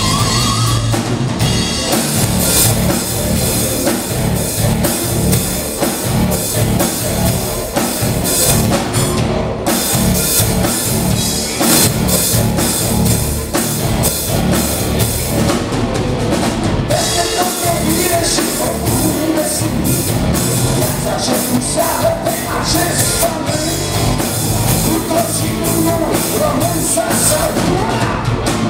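A rock band playing live and loud: electric guitars over a full drum kit with a steady pounding beat.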